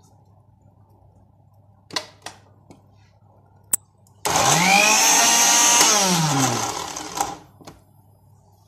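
Electric food processor motor run in one short burst of about three seconds, chopping a bowl of coriander and mint leaves with tamarind pulp. It spins up quickly, runs briefly, then winds down with a falling whine after being switched off. This is a first short pulse to bring the packed leaves down. A few knocks and a click come before it.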